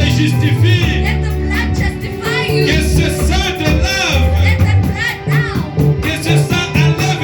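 Worship music with a band: a steady bass line under a beat, with voices singing.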